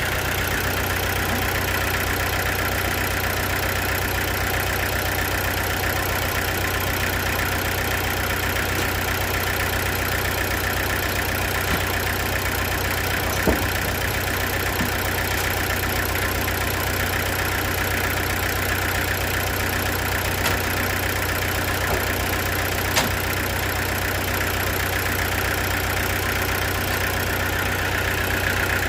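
Sawmill machinery running steadily at an even pitch, with a few sharp knocks about halfway through and again later.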